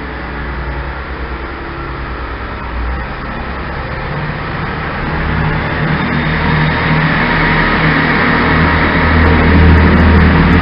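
Chiltern Railways Class 165 diesel multiple unit 165038 pulling away from the platform under power: its diesel engines run with a steady low drone and the rumble of the moving train, growing steadily louder as it accelerates past.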